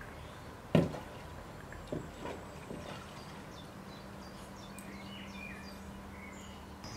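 A small dog ball lands in a mortar tub with a little water in it: one sharp smack about a second in, followed by a few fainter knocks. Birds chirp faintly in the background.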